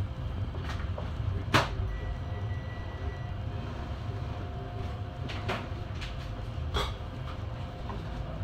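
Steady low rumble of a passenger train heard from inside the carriage, with several sharp knocks and rattles, the loudest about one and a half seconds in.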